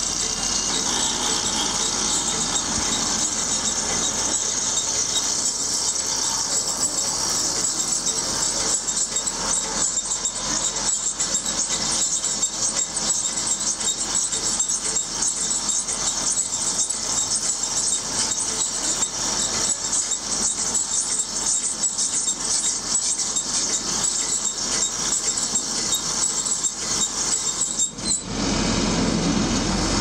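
Tractor-drawn John Deere 560M round baler running with a steady high-pitched squealing hiss. It dips briefly near the end.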